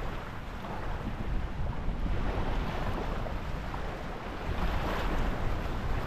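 Wind buffeting the microphone in a gusting low rumble, over small waves lapping on the water.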